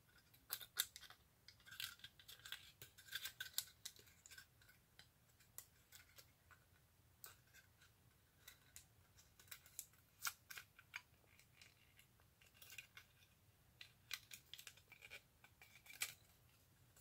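Faint, irregular crinkling and clicking of aluminium foil being handled and poked full of holes.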